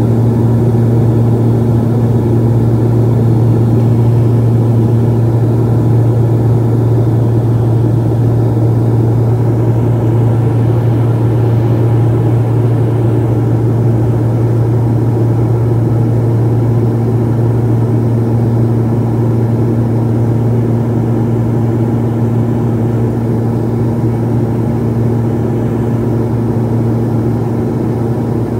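Cabin noise of a Beechcraft 1900D on approach: its Pratt & Whitney PT6A-67D turboprop and propeller run with a loud, steady low drone, heard from the seat beside the engine. A higher tone over the drone fades away for a while in the middle and comes back.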